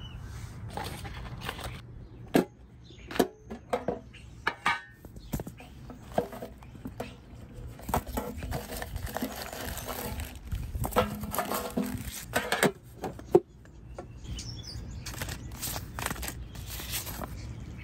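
Paper seed packets being shuffled and handled, rustling and crinkling with a few sharp snaps.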